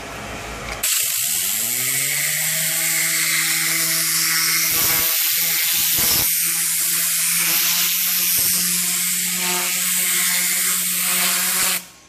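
Compressed-air interior cleaning gun spraying cleaner: a loud air hiss with a whirring hum that winds up in pitch as the trigger is pulled about a second in, runs steadily, then cuts off abruptly near the end.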